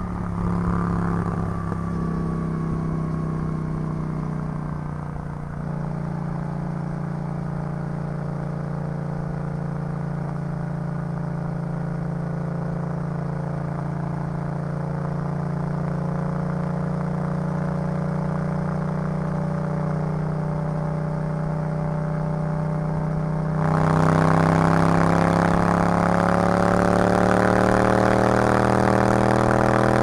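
Yamaha MT-07's parallel-twin engine through an Arrow full exhaust, under way: the revs fall as it rolls off, then it runs steadily at low revs. Near the end the sound suddenly gets louder with more rushing noise, and the revs climb slowly.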